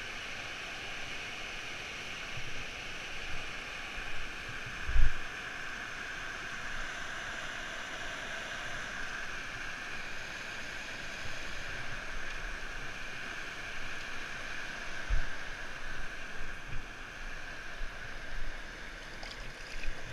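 River water rushing steadily over rocks. A few short low thumps break through it, the loudest about five seconds in.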